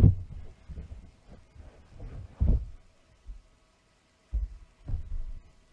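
Irregular low thuds, the strongest right at the start and about two and a half seconds in, with a brief quiet stretch before a few more near the end, over a faint steady hum.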